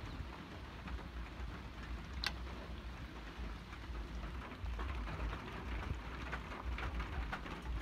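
Chicken pieces sizzling and crackling in a hot wok over a wood fire, with a sharp click about two seconds in.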